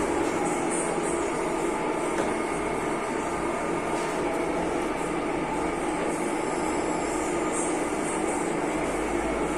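C6240 metal-turning lathe running with no load: a steady whir of spindle and gears with a few constant tones. Its gearbox has no oil in it yet, and the running sound is smooth.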